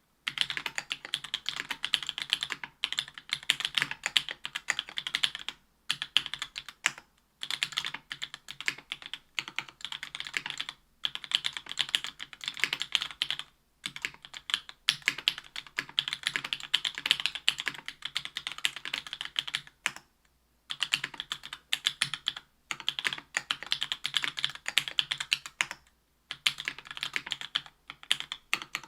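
Typing on a mechanical keyboard with stock JWK Black Clear Top linear switches (62 g) in an aluminium plate under GMK keycaps. Fast runs of keystrokes clack steadily, broken by short pauses every few seconds; the longest pause comes about two-thirds of the way through.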